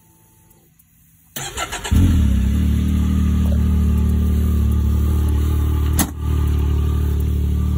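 2021 Can-Am Maverick X3 Turbo RR's turbocharged three-cylinder Rotax engine is cranked by the starter about a second and a half in. It catches half a second later and settles into a steady idle. A single sharp click comes about six seconds in.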